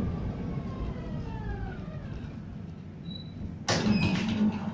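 Tram running, heard from inside the passenger car: a low rumble, with the electric motors' whine falling in pitch as it slows. A sudden loud burst of noise cuts in near the end.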